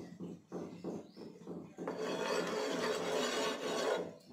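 Quick, regular ticks, then from about two seconds in a continuous scraping as a steel spoon spreads oil over a nonstick tawa, stopping just before the end.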